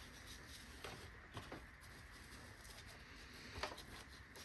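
Faint handling noises from work on a coffee machine: a few light clicks and scrapes over quiet room tone.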